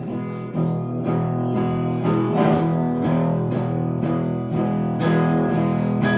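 Guitar-led music: an electric guitar strumming chords in a steady rhythm.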